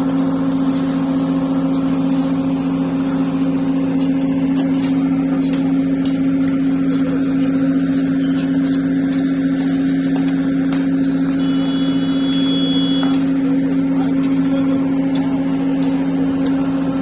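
Heavy diesel engine running steadily with an even drone, most likely the excavator's. A short high-pitched tone sounds for about a second and a half past the middle.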